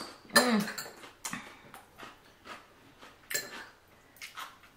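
Scattered clinks and taps of utensils on dishes during a meal, a few sharp knocks spaced out over several seconds, with a short sound falling in pitch about half a second in.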